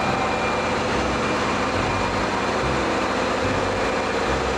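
Sound effect of a heavy truck engine running steadily, with a low uneven throb.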